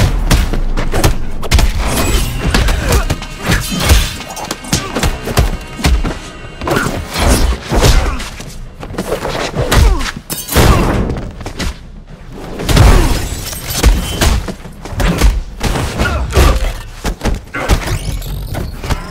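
Re-created fight sound effects: heavy thuds and hits in quick succession, all through, over loud action music.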